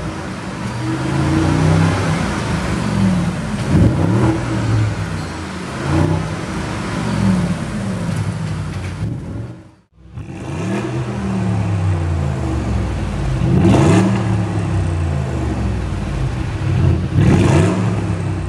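Audi RS Q8's twin-turbo 4.0-litre V8 revved repeatedly, breathing through downpipes with the petrol particulate filters removed. Its pitch climbs and falls with each blip, with a few sharp cracks near the peaks and a brief break about halfway through.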